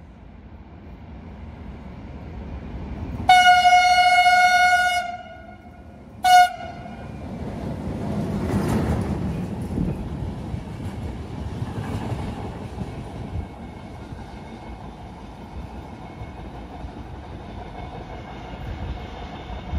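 A train sounds its horn as it approaches, one long blast of about two seconds and then a short one, and then runs past, its noise loudest a few seconds after the horn and then carrying on steadily.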